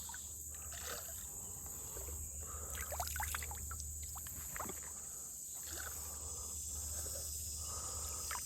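Steady high-pitched drone of crickets or other insects over the creek, with scattered faint splashes and water sloshing.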